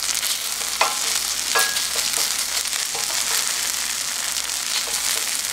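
Fried rice sizzling in a hot pan while a wooden spatula stirs it, with a few short scrapes of the spatula against the pan over a steady hiss.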